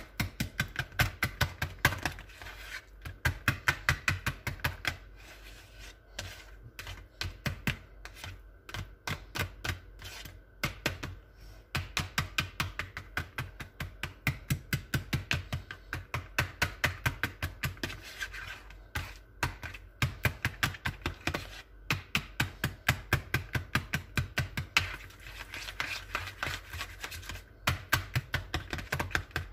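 Wire whisk tapping rapidly against a bowl as it mashes soft ripe banana, several strokes a second with a few brief pauses.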